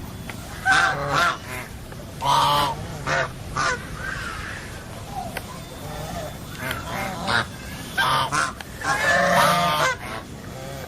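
Birds calling: a series of short, harsh honking calls in clusters over a steady background hiss, with the longest and loudest run of calls near the end.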